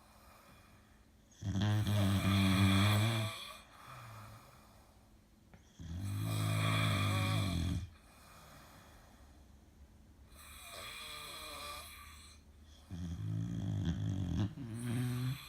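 Snoring: four long, low-pitched snores coming about every four seconds, the third one fainter than the others.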